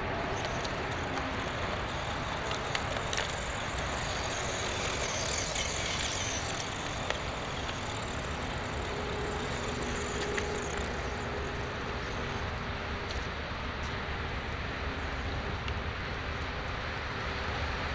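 Tamiya Desert Gator 1:10 rear-drive RC buggy running on a dirt track: a high electric-motor whine swells about five seconds in and fades a few seconds later, over a steady low rumble and scattered small clicks.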